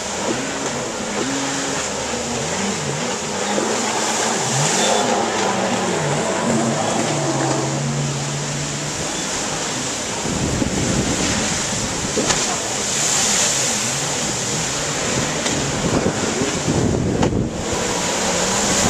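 Jet ski engines running on the water, their pitch rising and falling as they rev and pass. About halfway through, wind buffeting the microphone takes over as a low rumble.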